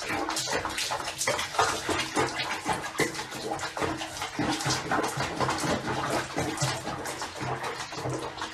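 Water splashing and sloshing in a plastic basin as a cat moves about in it, a steady run of small splashes.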